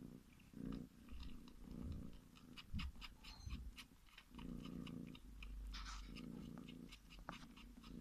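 Kitten purring in long pulsing bouts while it sucks and kneads on a blanket, with a run of quick, wet sucking clicks through the middle. This is comfort-suckling on cloth as if nursing, the habit of a kitten taken from its mother too early.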